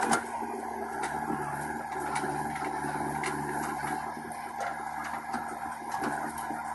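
A JCB 3DX backhoe loader's diesel engine running steadily under load as the backhoe bucket digs into soil, with scattered sharp clicks and knocks throughout.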